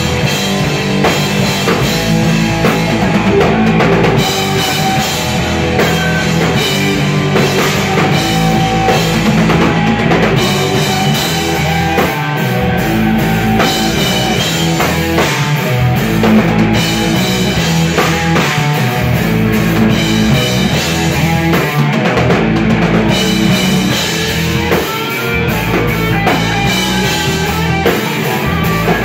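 Live rock band playing loud: a drum kit with electric guitars over it, heard from the dance floor in the room.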